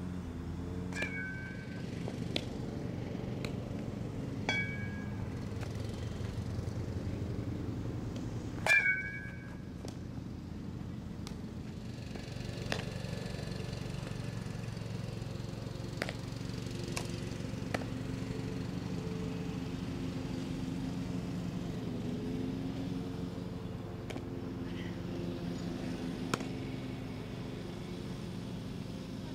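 A softball being hit with a bat, a sharp ringing ping three times in the first nine seconds, the last the loudest. Fainter clicks follow, over a steady low background noise.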